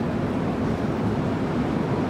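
Steady low rumbling background noise of an airport terminal concourse, with no distinct events.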